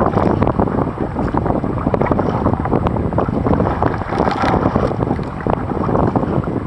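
Wind buffeting the microphone, dense and crackling, over water splashing as a sea kayak is paddled through choppy sea.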